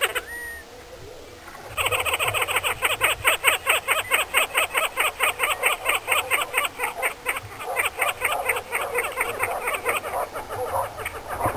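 A fast, even run of croaking calls, about five a second, that starts after a short lull about two seconds in.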